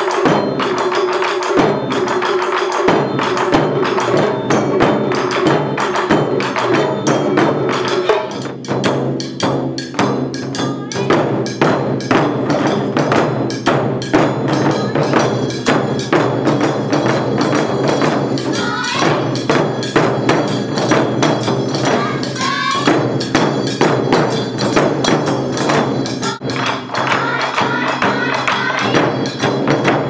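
A taiko ensemble playing: large barrel-bodied nagado-daiko and a rack of small shime-daiko struck with wooden sticks in a fast, dense rhythm.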